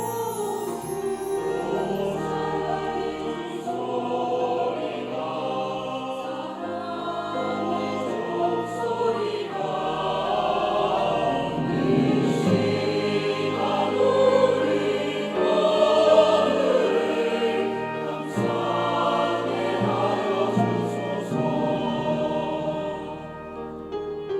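Church choir singing a sacred anthem in several voice parts, the phrase dying away near the end.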